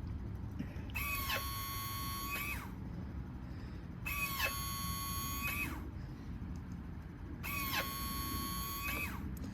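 Servo brake pump of a 2005 BMW R1200 GS's servo-assisted ABS running in three short bursts of about two seconds each, a high whine that rises in pitch as it starts and falls away as it stops. Each burst is the servo cutting in and out as the brake is worked, with the new brake micro switch now triggering it properly.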